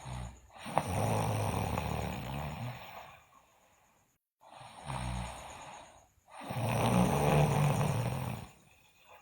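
A sleeping girl snoring loudly: two long snores, about a second in and about six and a half seconds in, each with a shorter, quieter sound just before it.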